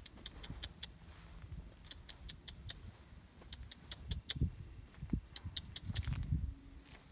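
Footsteps across grass and onto a concrete path, with dull low thumps and handling rumble mostly in the second half. A steady run of short, high chirps and clicks goes on throughout.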